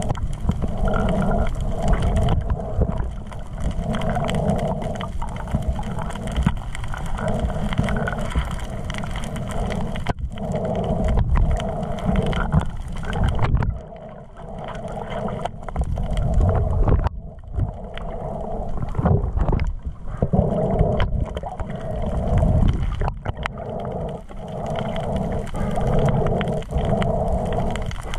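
Muffled underwater rumble and gurgling heard through a submerged camera, with a hum that pulses on and off every second or two and scattered sharp clicks.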